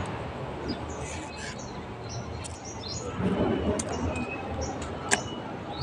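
Small birds chirping over and over, with a steady scraping rustle and a couple of sharp clicks as a knife strips leaflets from coconut-leaf midribs.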